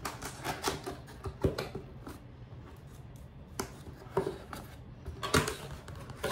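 Hands opening a cardboard box: the tuck tab is worked free of its slot and the lid lifted, giving scattered taps, clicks and scrapes of paperboard. The loudest come about a second and a half in and again just after five seconds.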